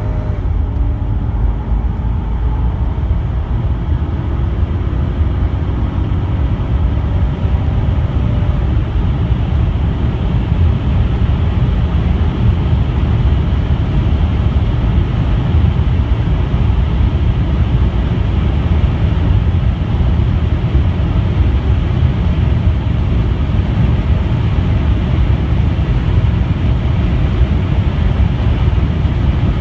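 Mercedes-Benz 500E W124's 5.0-litre V8 under full-throttle acceleration at high speed, heard inside the cabin: a loud, steady low rumble of engine, wind and road noise, with the engine note rising in pitch over the first several seconds.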